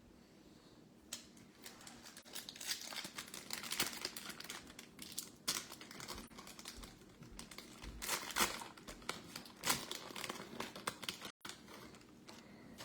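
Foil trading-card pack wrapper being torn open and crinkled, a dense run of crackling rustles and short tearing sounds.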